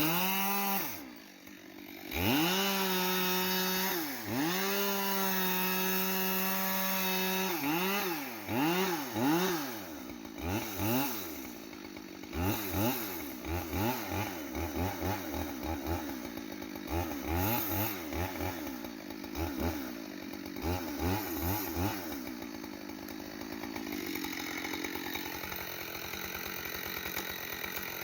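Two-stroke chainsaw revving: it is held at high revs for a few seconds, then given many quick throttle blips. It settles back to a steadier idle near the end.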